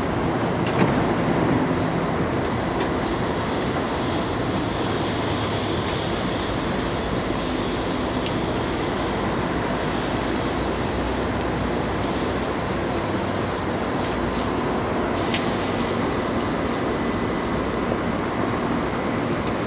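A BART train standing at the station platform with its doors open, giving a steady running noise mixed with constant freeway traffic. There is a brief knock about a second in and a few faint clicks later on.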